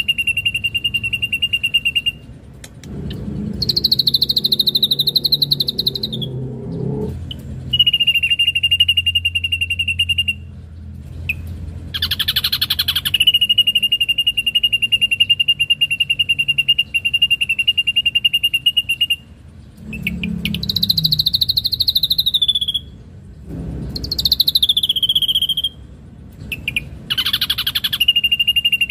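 Caged ashy drongo singing: long, fast trills held at one steady pitch, broken by higher phrases that fall away at the end and a few short harsh bursts.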